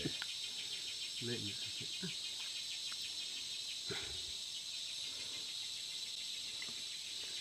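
Insect chorus, a steady high-pitched trilling with a fine rapid pulse.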